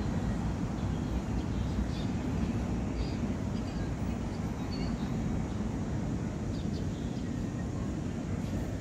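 Steady low rumble of outdoor background noise, with a few faint short high chirps now and then.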